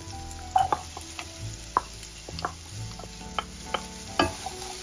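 Sliced mushrooms sizzling in a stainless steel skillet while a wooden spatula stirs them, with scattered sharp taps and scrapes of the spatula against the pan. Diced onion is added to the browned mushrooms.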